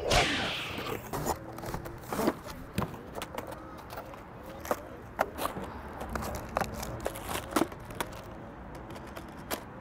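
Unpacking a Nerf Elite Infinus blaster: scattered clicks, scrapes and rustles of cardboard and plastic packaging being handled, after a brief rushing sound at the start.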